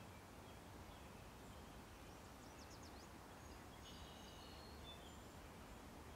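Near silence: the faint, steady low rumble of a distant freight train rolling across a stone arch bridge, with a few quick bird chirps about two and a half seconds in and some thin high bird calls around four seconds in.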